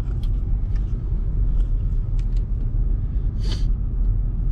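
A vehicle driving slowly, its engine and road noise making a steady low rumble, with a few faint ticks and a short hiss about three and a half seconds in.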